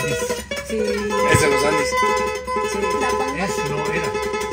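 Classical guitar being played, plucked notes and chords ringing on without a break.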